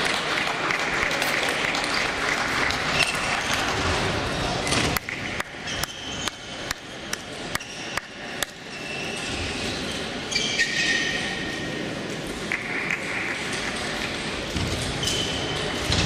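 Table tennis balls clicking off bats and tables in a large hall with several matches in play, over a background of voices and play from the other tables. About a third of the way in comes a run of sharp, irregular clicks.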